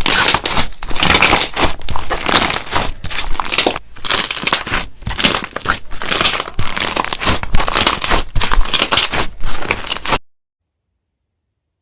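Slime being squeezed and worked by hand, giving a fast run of loud, crackly, crinkly pops. It cuts off suddenly about ten seconds in.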